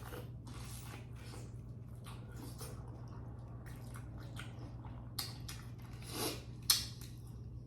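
Faint, close-up wet chewing and squishing of a mouth working on the chewy meat of a green-lipped mussel, soft irregular smacks and clicks, with a sharper click near the end. A steady low hum runs underneath.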